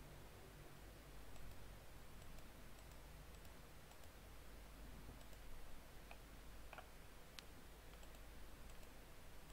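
Near silence: faint room hiss with a few soft computer-mouse clicks a little past the middle.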